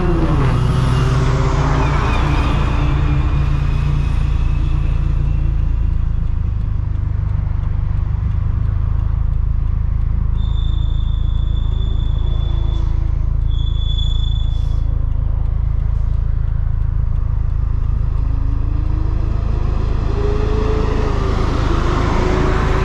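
Turbocharged 2013 Scion FR-S flat-four boxer engine and road noise on the move, with a steady low rumble. The engine pitch falls at the start, wanders in the middle and climbs again near the end. Two brief high steady whistles come a little past the middle.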